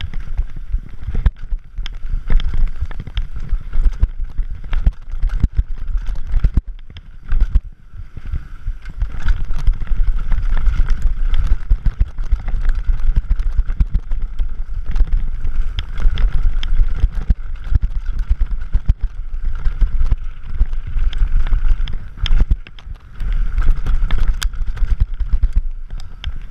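Scott Gambler 720 downhill mountain bike ridden fast over rough dirt trail: wind buffeting the microphone under dense, irregular rattles and knocks from the bike's chain, frame and suspension. A steady higher hum joins about eight seconds in.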